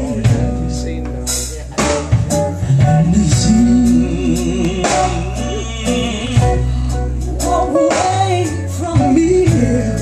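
Live blues band playing a slow blues: electric guitar lines over bass and drums, loud and continuous.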